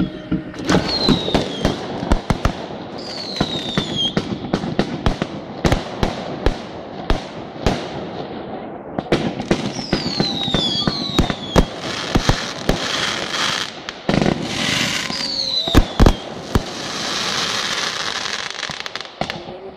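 Fireworks going off: many sharp bangs and crackles in quick succession, with several short whistles falling in pitch and a long stretch of dense crackling in the second half.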